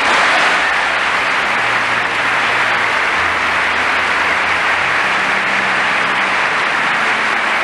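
A large audience applauding, loud and steady, the clapping breaking out suddenly.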